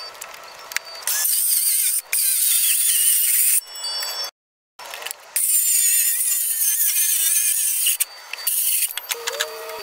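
Handheld circular saw ripping a long sheet of plywood lengthwise, with a high whine as the blade cuts. The sound starts about a second in, drops out for a moment near the middle, resumes and eases off near the end as the cut finishes.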